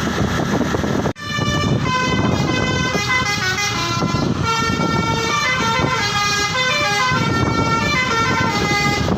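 Bus's multi-tone telolet air horn playing a tune in held notes that step from pitch to pitch, over engine and road noise. The sound drops out briefly about a second in.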